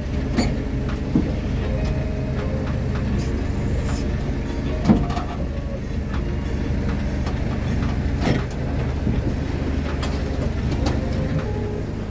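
Flatbed tow truck's engine running steadily. A few sharp knocks sound over it, the loudest about five seconds in.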